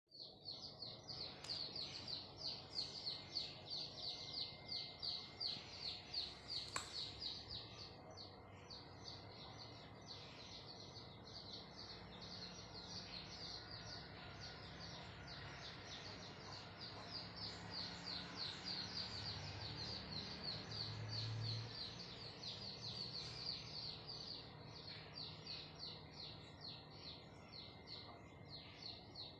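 Rapid, evenly repeated high chirps, about five a second, going on all through, with a faint steady high tone beneath and a low hum rising in the middle stretch.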